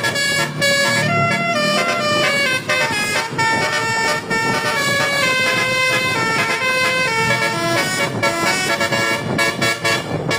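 Indonesian bus "telolet" multi-tone horn playing a tune: loud horn notes stepping up and down in pitch in quick succession, with brief breaks between phrases.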